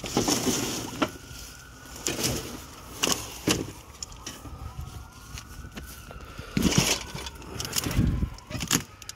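Plastic tarps and weeds rustling in several short bursts as they are pushed aside. A siren wails faintly in the distance with a slow rising and falling pitch.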